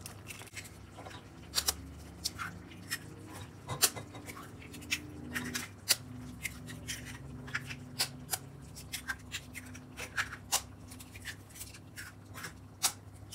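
Raw eggs being cracked open and dropped one by one into a pan of simmering tomato curry: many sharp, irregular clicks and taps of shell and utensil over a low steady hum.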